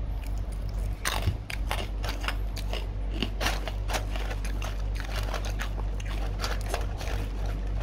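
Crunchy chewing of crispy dried fruit and vegetable chips: many irregular crunches, over a steady low hum.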